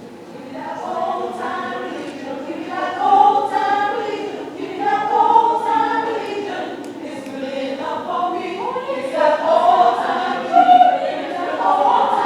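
A choir singing, starting about half a second in.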